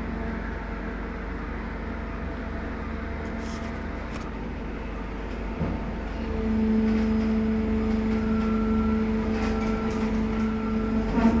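Steady machinery hum of a rubber-tyred gantry crane, heard inside its operator's cab. About six seconds in, a louder hum with a steady pitch sets in as the crane's drives run, and a few clicks come near the end.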